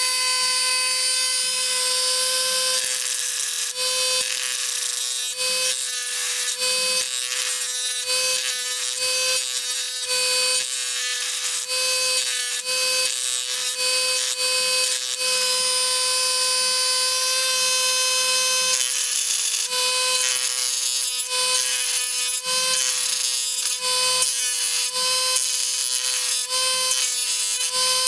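Small electric drill or rotary tool running with a steady high-pitched whine, its bit grinding in uneven spells against die-cast metal as it drills out the rivets holding a toy car's base on.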